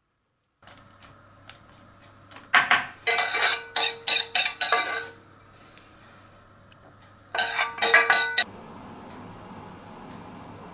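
Kitchen utensils and pans clinking and clattering in two bursts, one a few seconds in and a shorter one later, each with a brief metallic ring. A steady low hiss follows.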